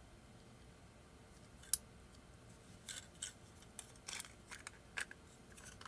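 Light clicks and taps of hard plastic 3D-printed turbine parts and a spacer being handled and pressed together into the bearing casing: a handful of scattered short clicks, the sharpest about two seconds in.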